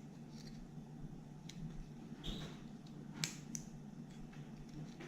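Several light clicks of a folding multitool pocket knife being handled, its tools swung open and shut, over a low steady hum.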